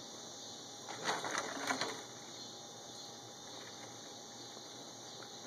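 Raccoons feeding from plastic trays: a quick run of small clicks, scrapes and rustles of paws and snouts on plastic and dry litter, loudest about a second in.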